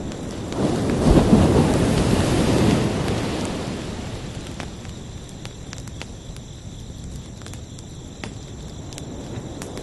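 Ocean wave breaking on the shore, surging in about half a second in and washing out over the next few seconds, over a steady high chirping of crickets.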